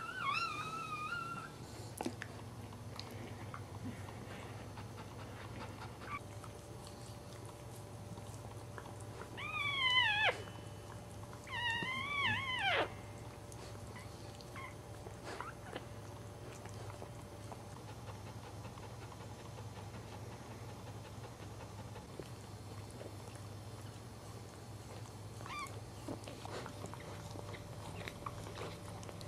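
Newborn Cairn terrier puppies crying in thin, high, mewing squeals: a short cry at the start, two louder drawn-out cries that bend up and down around ten and twelve seconds in, and a faint one near the end.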